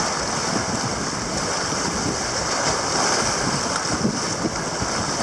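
Choppy sea water washing and breaking against the rocks of a jetty wall, with wind on the microphone; a steady rush of water and wind.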